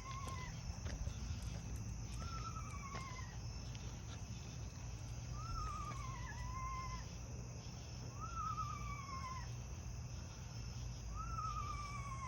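Animal in the trees giving a wavering, whinny-like call that falls in pitch over about a second, repeated about five times at two- to three-second intervals.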